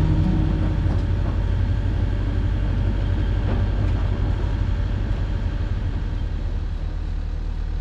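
Wind buffeting the microphone aboard a sailing yacht under sail, a loud, steady, uneven low rumble.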